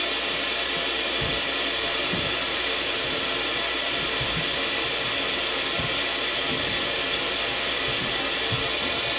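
A steady, even rushing hiss of air noise, with a few faint soft low thumps.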